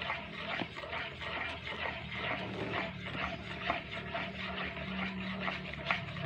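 A spoon stirring a runny mixture of salt water, oil, food colouring and starch in a plastic bowl, with continuous quick scraping and clicking strokes, over a low steady hum.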